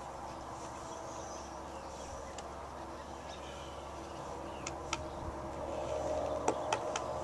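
Horse's hooves moving in a dirt round pen, with a few sharp hoof knocks in the second half.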